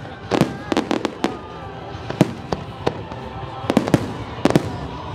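Aerial fireworks shells bursting overhead: about a dozen sharp bangs at irregular intervals, some in quick pairs, over a continuous background rumble and crackle.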